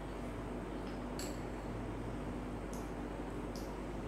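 A few faint clinks of a metal spoon against a small bowl during tasting, over a steady low hum.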